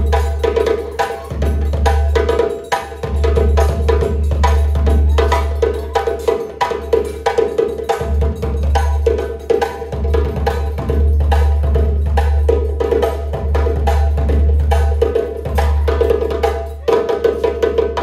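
West African drum ensemble playing a steady, dense rhythm: hand-struck djembe over barrel-shaped dunun drums beaten with sticks, many strokes a second.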